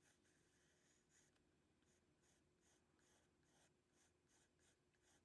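Faint scratching of a graphite pencil on paper in short, repeated sketching strokes, coming faster in the second half.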